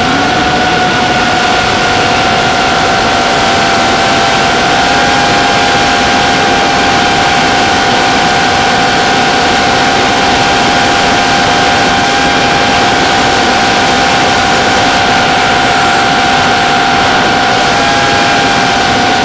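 Electric motor and propeller of an FPV model aircraft whining at a steady pitch under a loud rush of wind noise. The pitch steps up slightly about five seconds in and starts to fall right at the end as the throttle eases.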